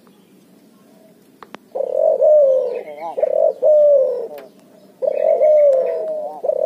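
Cuhu, a hybrid of a Barbary dove and a spotted dove, cooing loudly: a run of low, rolling coos starts about two seconds in, breaks off briefly, and a second run starts near the end.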